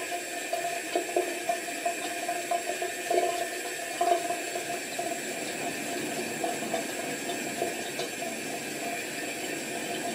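Tap water running steadily into a bathroom sink.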